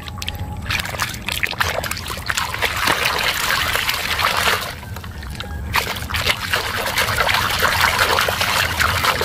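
A hand swishing and churning muddy, foamy water in a plastic basin: busy sloshing and splashing, with a short lull about halfway through.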